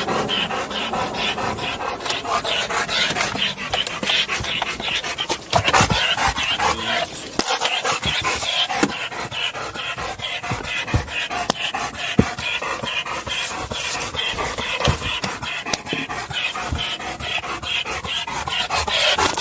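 Black German Shepherd panting hard in quick, steady breaths, close up inside a car's cargo area, with a few sharp knocks along the way.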